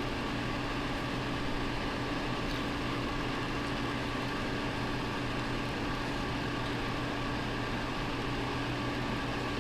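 Steady machine hum with a few fixed tones over an even whir, like a running household appliance or fan.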